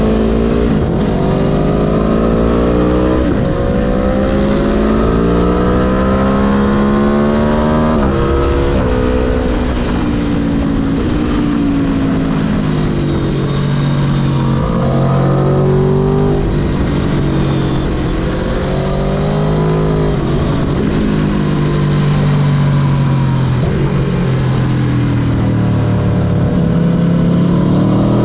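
Sport motorcycle engine heard from onboard at speed, climbing in pitch under acceleration with sharp drops at the gear changes, then repeatedly winding down and pulling up again through a run of bends, over a steady rush of wind.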